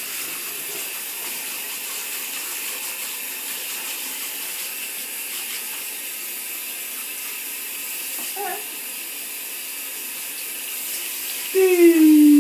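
Water from a handheld shower sprayer running steadily into a bathtub and over a baby, an even hiss. A brief voice sound comes about two thirds of the way in, and near the end a loud, long voice sound starts, slowly falling in pitch.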